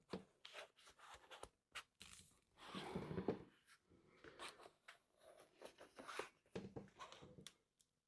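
Faint scattered clicks and taps of hard plastic massage-gun attachment pieces being handled and fitted together, with a longer rustle about three seconds in.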